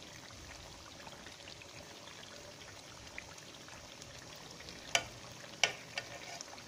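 Chicken and tomatoes in ghee sizzling softly in an aluminium karahi, with two sharp metallic clicks from metal tongs about five and five and a half seconds in.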